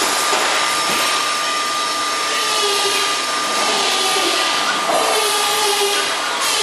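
Machinery running steadily in a workshop: an even rushing noise with a constant high-pitched whine.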